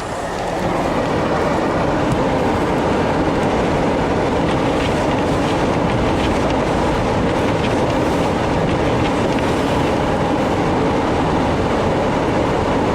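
A vehicle driving through snow: a steady, loud noise of the engine, the tyres working through snow and the wind, unchanging throughout.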